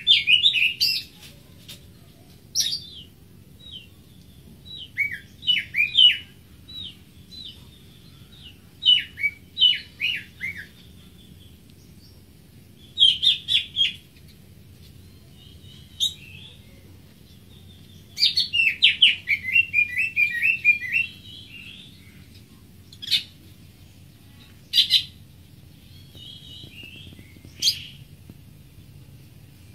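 Greater green leafbird singing: short phrases of quick, falling whistled notes, a few seconds apart, with a longer run of rapid descending notes about 18 seconds in and single sharp notes near the end.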